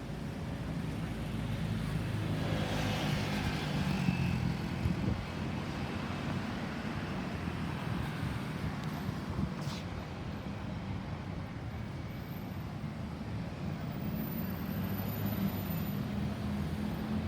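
Road traffic: vehicle engines running and tyres passing, with one vehicle passing close and loudest about two to five seconds in. No siren sounds.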